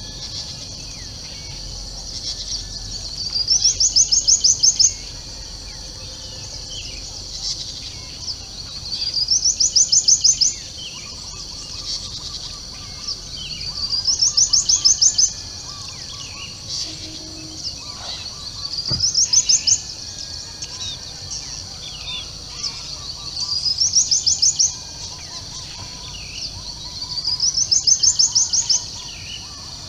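Dawn bird chorus: a loud, fast, high trill that swells in volume and repeats about every five seconds, over softer scattered chirps and whistles and a steady high hiss.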